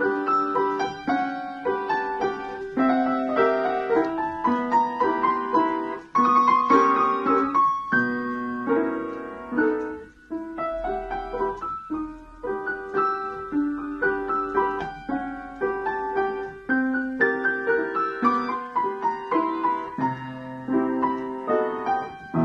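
Upright piano playing a waltz: a steady flow of melody notes over bass notes and chords, with two brief near-pauses about six and ten seconds in.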